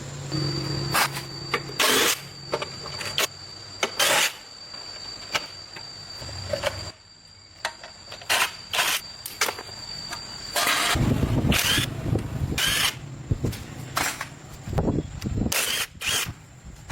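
Hand tools at work: an irregular string of sharp knocks and clicks, with a steady low hum over the first two seconds.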